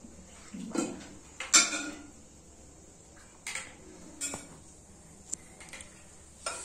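Spoons and dishes clinking as food is served from a pot into bowls: a handful of separate sharp clinks and knocks, the loudest about a second and a half in.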